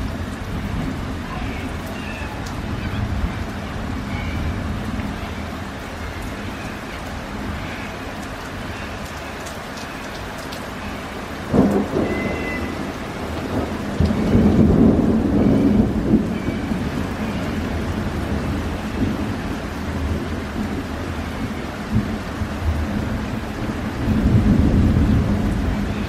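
Thunderstorm: steady rain falling, with a sharp thunderclap about halfway through followed by long low rolls of thunder, and another rumble near the end.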